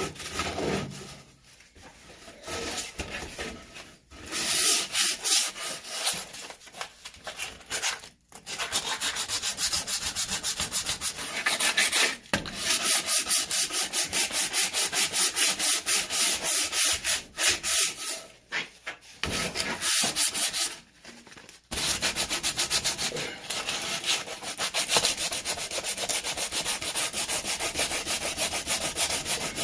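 Coarse 60-grit sandpaper rubbed in quick back-and-forth strokes along a wooden axe handle, a steady scratchy rasping broken by a few short pauses. It is stripping the handle's slippery shiny stock finish down to bare wood.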